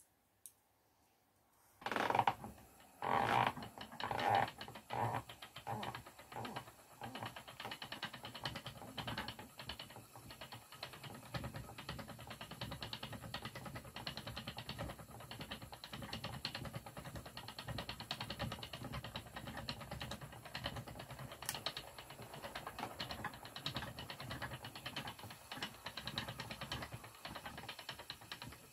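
Wooden treadle spinning wheel starting up about two seconds in with a few loud knocks, then running with a steady fast clicking and clatter of the treadle and flyer while yarn is being plied.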